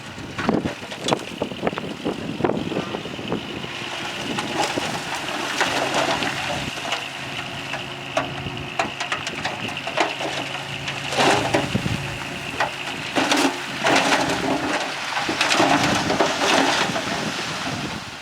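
Shantui DH17C3 crawler bulldozer working, its diesel engine running under load with a steady high squeal and repeated clanking and rattling, loudest in bursts in the second half.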